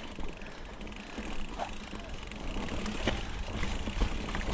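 Mountain bike rolling along a trail: steady tyre and drivetrain rumble, with two sharp knocks from the bike about three and four seconds in.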